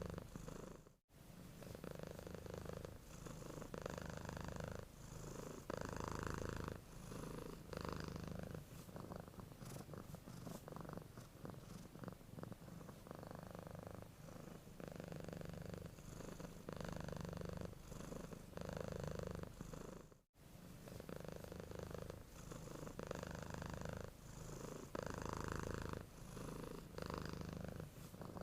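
Domestic cat purring while asleep: a low, steady rumble that swells and fades with each breath, every second or two. It cuts out suddenly for a moment twice, about a second in and about twenty seconds in.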